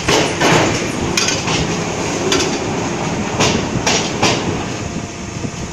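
Paver brick machine production line running: a steady machine noise with irregular metal clanks, about one or two a second, from steel pallets and the chain-driven pallet elevator moving freshly pressed pavers.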